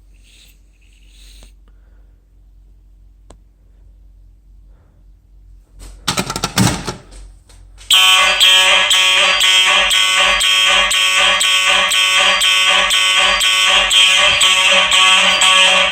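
Simplex 4903 fire alarm horn/strobes sounding in march time, a loud buzzing horn pulsing about twice a second, starting abruptly about eight seconds in. A brief clatter comes just before the horns start.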